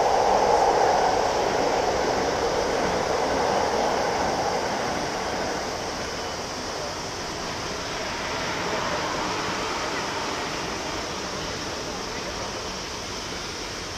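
Boeing 777-200ER twin jet engines running at taxi thrust as the airliner taxis, a steady rushing jet noise that slowly fades.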